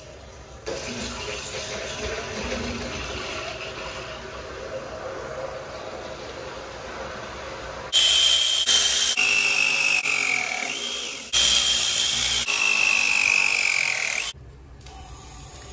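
A steady hiss for several seconds, then a battery press tool crimping a ProPress copper fitting: a loud motor whine that sags slightly in pitch as the jaw closes, chopped into a few short runs, stopping suddenly near the end.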